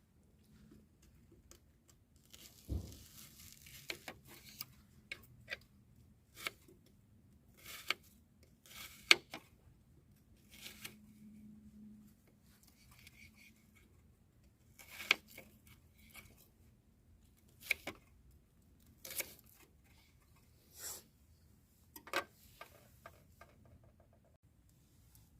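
Scattered clicks, taps and short rustles of small items being handled, a few seconds apart.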